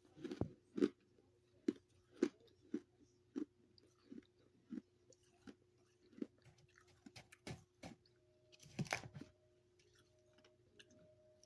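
A person chewing a mouthful of freezer frost, crunching steadily about once or twice a second, with a louder crunch of a fresh bite near the end, over a faint steady hum.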